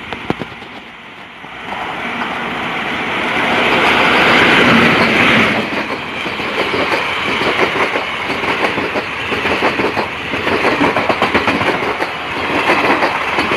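Indian Railways express train running through the station at speed. The electric locomotive rushes past about four to five seconds in, the loudest moment. Its blue ICF passenger coaches follow with a rapid, steady clickety-clack of wheels over the rail joints.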